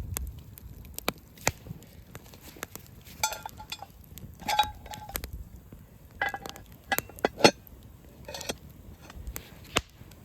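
Metal cooking gear being handled: several short ringing clinks of metal on metal among scattered sharp clicks and knocks.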